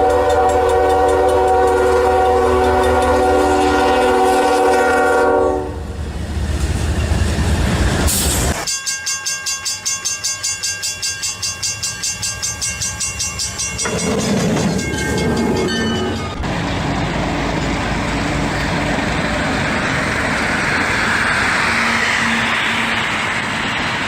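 Train horn sounding a loud chord for about five seconds. Then another train horn blows with a pulsing loudness, and after that comes the steady rushing noise of a moving train.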